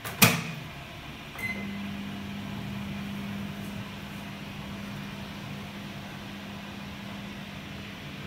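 Microwave oven door clicked shut, then a short beep from the control panel about a second later. The oven then starts up and runs with a steady low hum, heating a glass of water.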